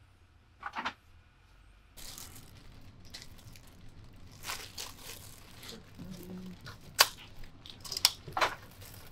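Wrapping paper rustling and crinkling as an item is unwrapped by hand. It starts about two seconds in, with several sharper crackles and tears.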